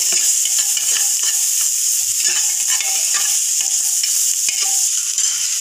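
Chopped onions sizzling in hot oil in a pot while a spoon stirs them, with frequent short scrapes and taps of the spoon against the pot.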